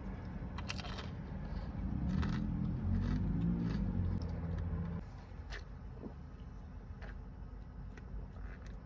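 Close-up eating sounds: chewing, with a few sharp clicks of a utensil or container, over a low rumble that fades about five seconds in.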